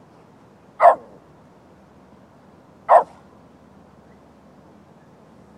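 Lhasa apso barking at deer: two single sharp barks about two seconds apart.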